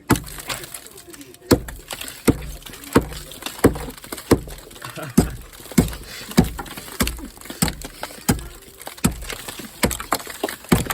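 Repeated hard knocks in a steady rhythm, about one every three-quarters of a second, each with a dull thud beneath.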